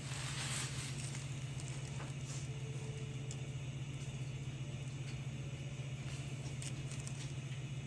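A pot of broth bubbling at a boil, with a brief louder splash in the first second as a handful of homemade noodles goes in. A steady low hum runs underneath.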